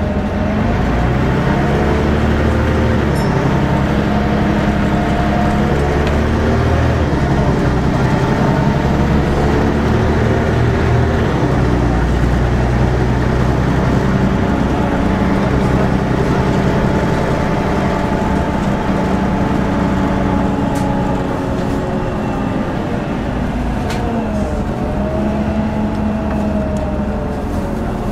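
A Volvo B10BLE single-deck bus heard from inside the passenger saloon while it drives: the diesel engine's note rises and falls several times as the bus speeds up and slows, over steady road noise.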